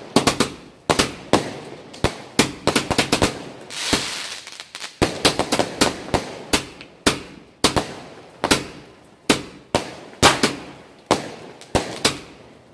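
240-shot fireworks cake firing: a rapid run of sharp bangs, about two a second, each a shell bursting in the air. There is a quick cluster of bangs about two and a half seconds in, and a brief hiss near four seconds.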